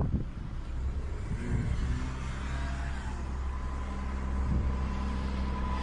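A motor vehicle's engine running steadily at low revs, a low even hum, with light noise under it.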